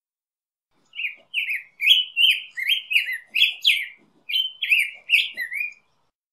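Black-headed grosbeak singing: one warbled phrase, about five seconds long, of quick rising and falling whistled notes with a brief break about four seconds in.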